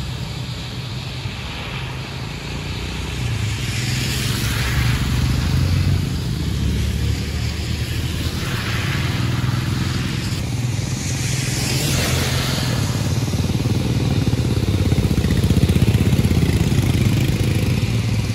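Bus engine running steadily with a low drone. A hiss swells up three times, about four, nine and twelve seconds in.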